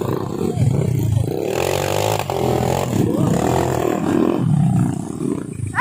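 Trail motorbike engines running and revving, the pitch rising and falling as the dirt bikes ride a muddy, rutted track.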